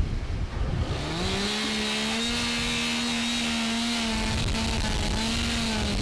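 A small engine revving up over about a second and held at a steady high speed for several seconds, its pitch sagging slightly at the end.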